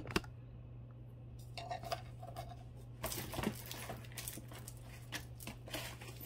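Costume jewelry being handled: light clinks and rattles of metal chains and beads with some rustling, sparse at first and busier from about halfway through, as tangled necklaces are picked through.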